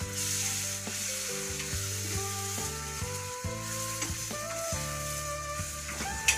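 Masala-coated idli cubes deep-frying in hot oil in a kadai, sizzling steadily while they are stirred and turned with a steel slotted spoon. A sharp clink comes near the end.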